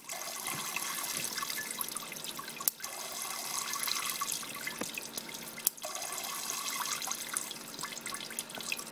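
Kelvin water dropper running: a steady patter and trickle of falling water droplets. High-voltage sparks jump across the foil-covered spark gap with sharp snaps about every three seconds. Each time, the water sound briefly drops as the field discharges and then builds again.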